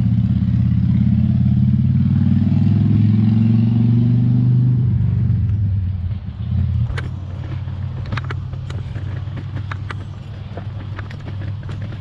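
A motor engine running steadily, its level dropping about five seconds in. From about seven seconds, a string of sharp clicks or ticks.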